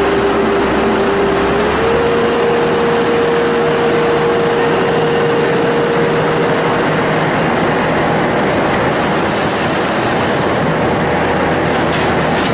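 Corn harvester running steadily: a loud, dense machine noise with a whine that steps up slightly in pitch about two seconds in, then fades away.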